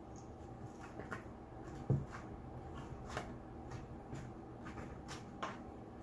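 Close-miked eating and food-handling sounds: scattered small clicks and mouth smacks, with one low thump about two seconds in.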